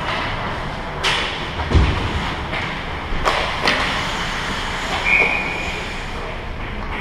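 Ice hockey play around the net: steady rink noise with skates on the ice, several sharp stick-and-puck knocks, and a heavy thump about two seconds in. A short referee's whistle blast sounds about five seconds in.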